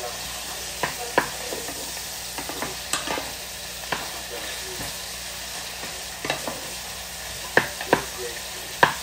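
Ground beef and onions sizzling steadily in a frying pan while two wooden spoons stir them, knocking and scraping against the pan at irregular moments, with a few knocks close together near the end.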